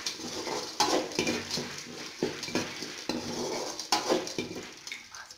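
A metal ladle scraping and knocking irregularly against an aluminium kadai as peanuts, roasted gram, dried red chillies and garlic are stirred and sautéed in hot coconut oil, with a light sizzle underneath. The stirring fades near the end.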